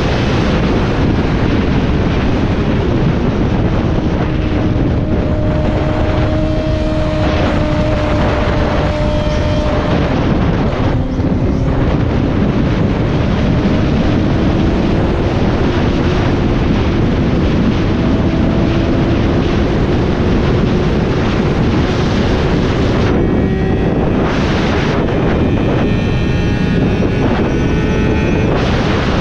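Sport motorcycle at about 95 mph: heavy wind rush on the microphone over the engine's steady drone. The engine note drops briefly about ten seconds in, then climbs slowly for the rest.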